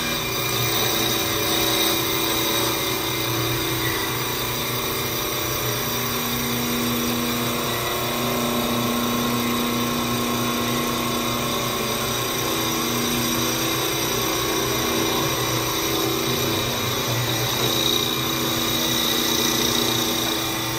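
CNC wood-turning lathe running: the spinning wooden blank and the motor-driven cutting spindle give a steady machine whine with a noisy cutting hiss.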